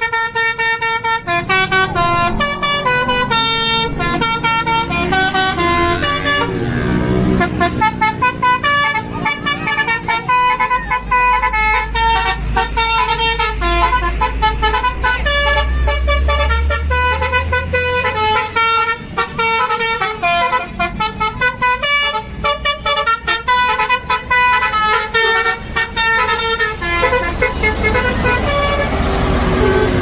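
Bus 'basuri' telolet horn playing a quick melody of changing notes, over and over. A low rumble sits under it for several seconds in the middle.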